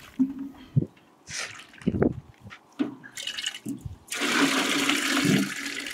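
Rinse water poured off washed apples from a metal basin into a square metal tin: a loud, steady splashing rush starting about four seconds in and lasting about a second and a half. Before it come a few short knocks and soft sloshing.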